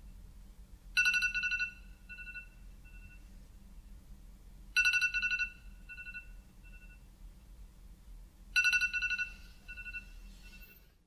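Smartphone alarm ringing: a bright chime strikes three times, about four seconds apart, each strike trailing off in fading echoes, then cuts off.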